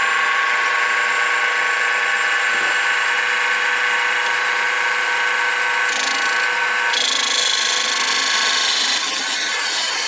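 Wood lathe running with a steady motor whine while a gouge cuts the spinning wood, a rough scraping over the hum. The cutting noise turns harsher and hissier about six to seven seconds in.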